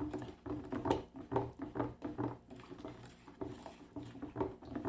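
Wet plaster being stirred by hand in its mixing container, a rhythmic run of sloshing, scraping strokes about two to three a second.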